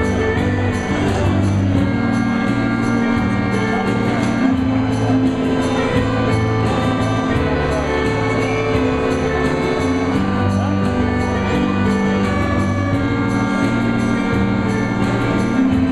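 Digital piano playing an instrumental passage: held chords over a moving bass line, with a light, even percussion beat.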